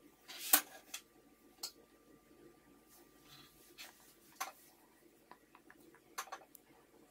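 Cotton fabric being handled, folded and laid flat on a table, rustling in short bursts. There is a sharp tap about half a second in and a few small clicks later.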